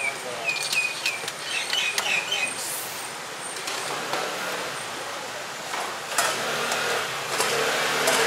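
Street-side ambience at an outdoor food stall: traffic noise with background voices, a few short high chirps in the first two seconds, and scattered clicks and clatter.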